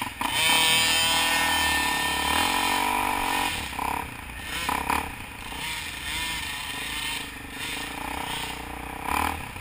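Dirt bike engines revving as they pull away on the trail, loudest in the first three seconds, then running on at a lower, wavering pitch.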